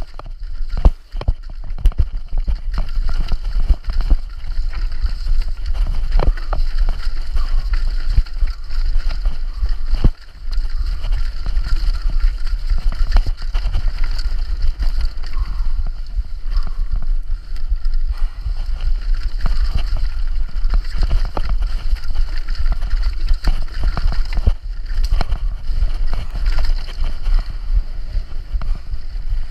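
Downhill mountain bike descending fast over a rocky dirt trail: wind rushing over the camera's microphone as a constant rumble, with tyre noise and frequent sharp knocks and rattles as the bike hits rocks and roots.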